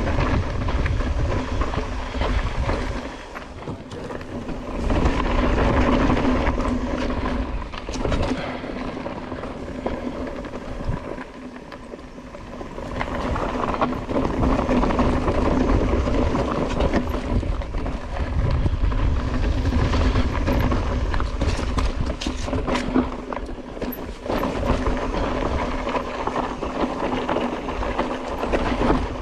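Mountain bike clattering and rattling down a steep, rocky downhill trail, with a low rumble and a steady buzz running through it. It quietens briefly twice, a few seconds in and again in the middle.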